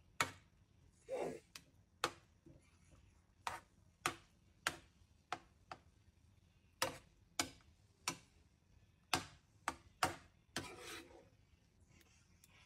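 Metal spoon clacking and scraping against a nonstick frying pan while stirring chicken pieces in a thick creamy sauce: irregular sharp clacks, with a longer scrape about a second in and another near the end.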